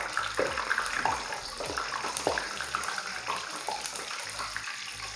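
Batter-coated eggplant slices deep-frying in hot oil in a karahi: a steady sizzle with many small crackles and pops.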